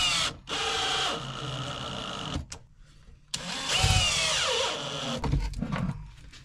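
Power drill running in three short bursts, its motor whine sagging and falling in pitch as it slows in the last one; a few weaker knocks follow near the end.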